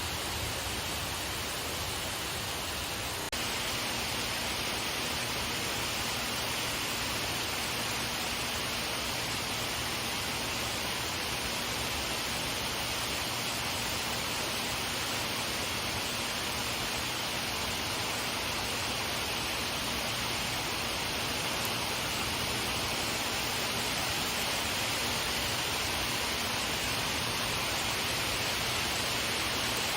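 Steady hiss of a rain shower falling, growing slightly louder about three seconds in.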